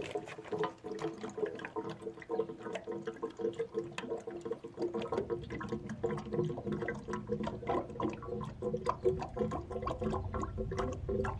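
A bottle of fuel-injector cleaner being poured into a pickup's fuel tank, the liquid pouring and gurgling steadily.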